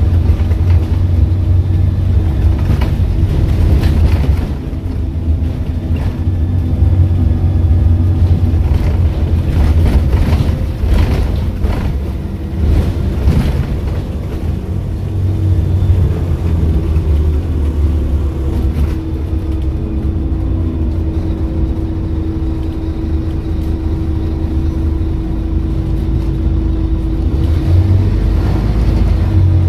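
Scania N230UD OmniCity double-decker bus heard from inside while driving: its five-cylinder diesel engine and ZF automatic gearbox give a deep, steady drone, with body rattles and knocks in the first half and a steady whine through the second half.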